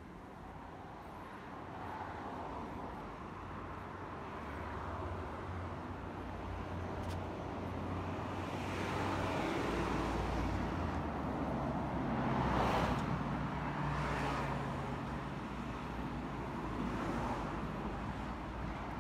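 Road traffic, with several vehicles passing close by and the loudest pass-bys in the middle, over a steady low engine hum.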